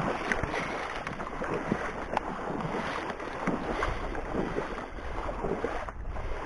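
Boots wading through shallow marsh water, water sloshing and splashing irregularly with the steps.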